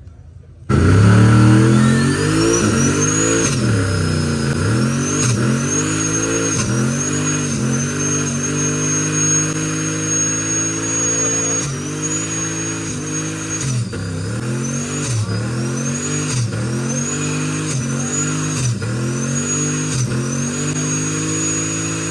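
Car engine revving hard again and again, the revs swooping up and down, with spells held at high rpm. A high whine rises and falls with the revs. The sound cuts in abruptly about a second in.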